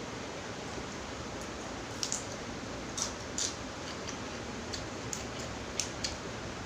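A person eating: scattered short, sharp mouth clicks and smacks over a steady background hiss.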